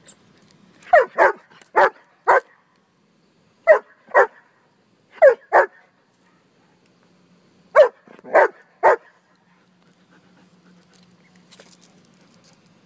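German shepherd barking: about eleven short barks in quick groups of two to four, stopping about nine seconds in.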